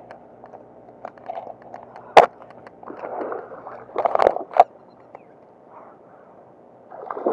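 A hooked bullseye snakehead splashing and thrashing in the water, in uneven bursts, with two sharp knocks about two and four and a half seconds in.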